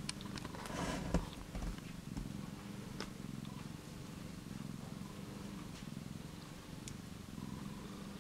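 Steady low purring from an Australian Mist cat nursing a kitten, with a few faint soft clicks.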